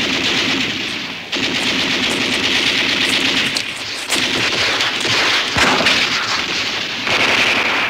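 Battle soundtrack of rapid, continuous machine-gun and rifle fire, with a single heavy blast about five and a half seconds in.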